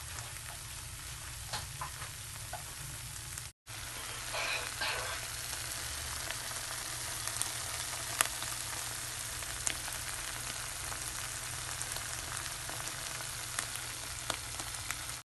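An egg frying on a bed of tuna sisig in a frying pan: a steady sizzle with scattered sharp pops of spitting fat. The sound drops out briefly about three and a half seconds in.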